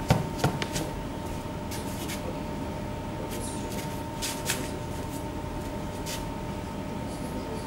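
Steady hum of a hall's sound system with a faint high tone, and knocks and clicks of things being handled at a podium microphone, a cluster near the start and a few more around the middle.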